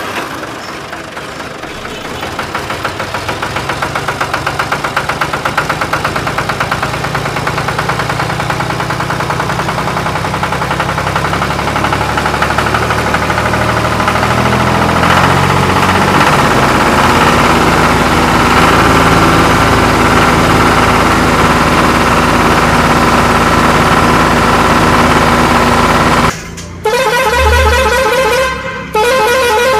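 Tractor engine sound running steadily and growing louder over the first half. About 26 seconds in it cuts off abruptly and a vehicle horn sounds in repeated pulsing blasts.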